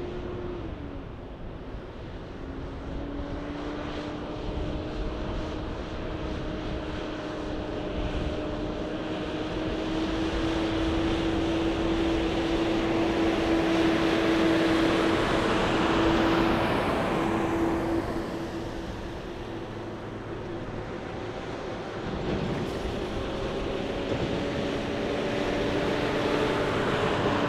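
Two Kenworth semi trucks' diesel engines driving past one after the other: a steady engine drone over tyre noise, growing loudest around the middle as the first rig goes by, easing off, then swelling again near the end as the second rig passes.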